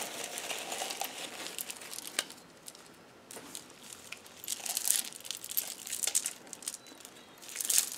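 Plastic wrapping crinkling and beads and metal charms clicking as a beaded chunky charm dangle is handled, with a quieter spell in the middle.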